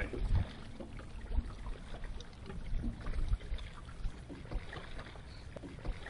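Water lapping against the hull of a stopped bass boat, with an irregular low rumble and soft thumps on the boat-mounted microphone.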